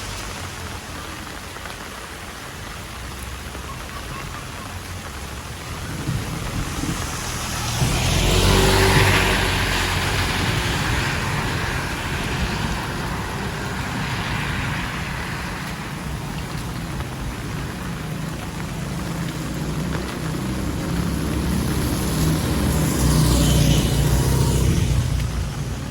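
Heavy rain falling steadily. The sound swells louder with deep low rumbling about eight seconds in and again near the end.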